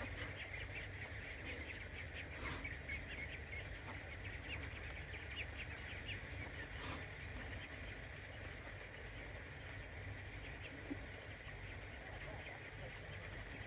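Faint, rapid chirping calls of a brood of young mallards, many short calls a second, over a low steady rumble.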